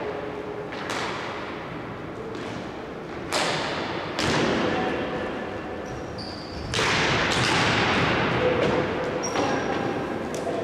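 Indoor hockey play: sharp knocks of sticks and ball, the ball striking the side boards, each one echoing through the sports hall. The knocks come irregularly, several of them, with louder ones about three, four and seven seconds in.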